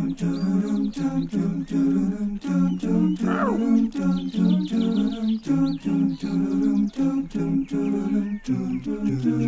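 Vocal-only background music: a quick, bouncy tune hummed a cappella in short repeated notes. About three seconds in there is a brief sliding sound effect.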